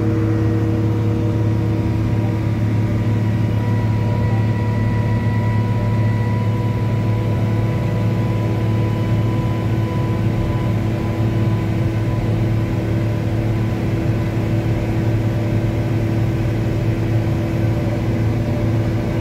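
A towbarless aircraft tug's engine running steadily as the tug drives, heard from inside its cab: a constant low drone with a steady whine above it.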